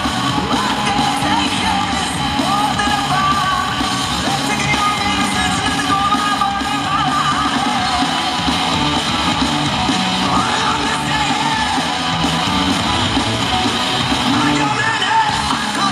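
Loud rock song with a singer, played over an arena's sound system during pre-game warm-up.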